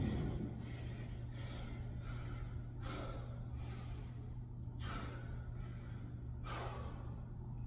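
A man breathing hard, catching his breath after exertion, with a breath every second or two. A steady low hum runs underneath.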